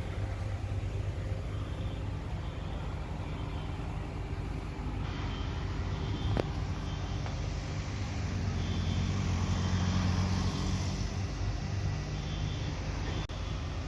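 Fire apparatus diesel engine idling with a steady low hum that swells for a few seconds about two-thirds of the way through. Faint short high beeps repeat at intervals, and there is a single sharp click about halfway.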